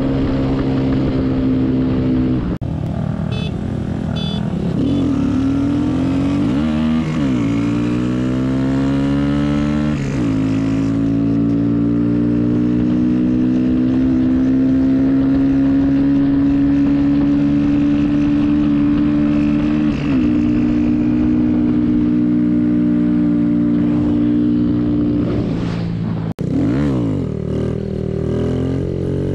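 Mini motorcycle's 125 cc single-cylinder engine running at cruising speed, heard close up from the bike being ridden. Its steady note dips and climbs again a few times as the rider shifts gears and accelerates.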